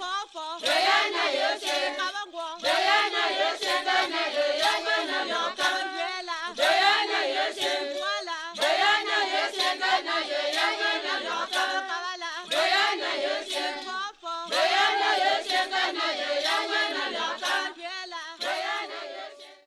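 Background music of a choir singing together, with frequent sharp claps or percussive hits through it. It fades out near the end.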